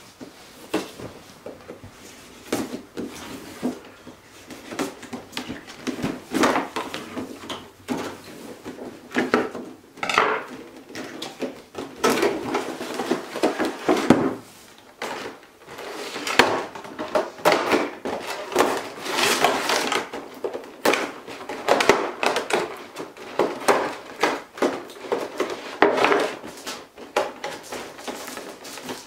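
Unboxing noises: a knife cutting the tape on a cardboard figure box, the box being opened and its inner box slid out, then a clear plastic blister tray being handled. The result is irregular scrapes, rustles and knocks of cardboard and plastic.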